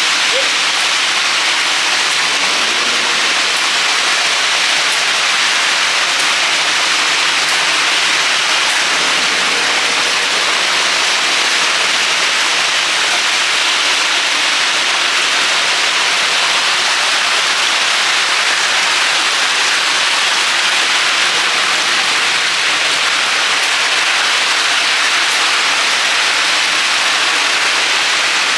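Steady hiss of falling water, loud, even and unbroken.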